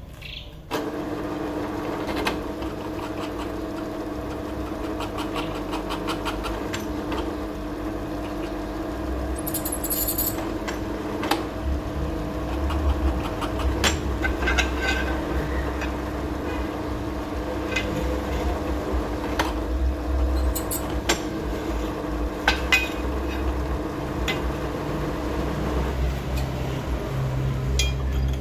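Electric drill motor starting about a second in and running steadily while boring into a steel leaf spring, with scattered metallic clinks and knocks; the motor stops near the end.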